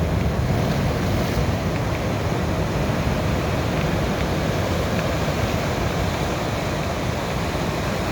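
Sea waves rolling in and washing onto a beach, a continuous rush of surf with no distinct breaks.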